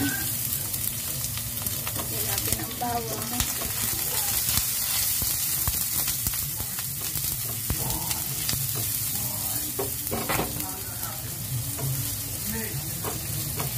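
Minced garlic sizzling in hot cooking oil in a nonstick frying pan, being sautéed and stirred with a silicone spatula that scrapes lightly across the pan. A steady low hum runs underneath.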